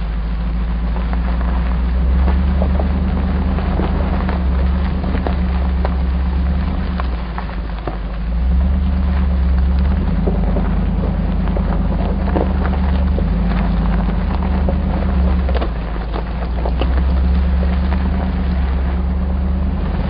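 Hummer H2 V8 engine heard from inside the cabin, driving slowly over a bumpy dirt and gravel road: a low, steady engine drone that swells and eases a few times, with many small knocks and rattles from the gravel and bumps.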